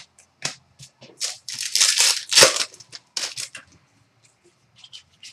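Trading cards and their packaging handled by hand: a few sharp clicks and snaps, then, about a second in, a second and a half of loud rustling and crinkling, then a few more light clicks.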